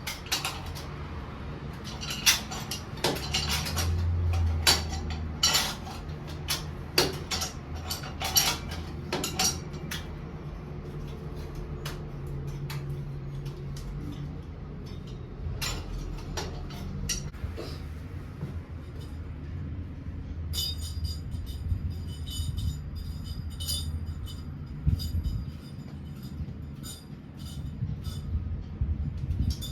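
Hard objects clinking and knocking, most likely metal tools and fittings being handled: a run of sharp knocks in the first ten seconds, then quicker light metallic ticking in the last third, over a steady low hum.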